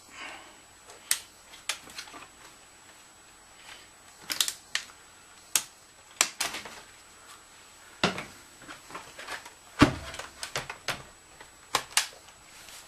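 Plastic clicks, taps and knocks from a laptop being handled as its battery latches are released and the battery is taken out, with a heavier knock about ten seconds in as something is set down on the bench.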